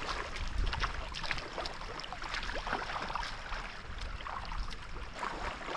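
Shallow sea water lapping and splashing at the shoreline, with many small irregular splashes over a low, steady rumble.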